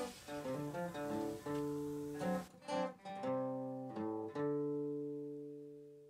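Acoustic guitar music: a run of plucked notes, then a final chord about four seconds in that rings out and fades away.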